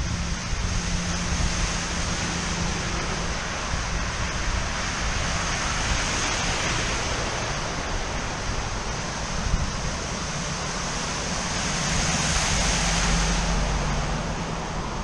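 Steady rushing noise of wind and storm water, with wind blowing across the microphone; it swells twice, about six and twelve seconds in.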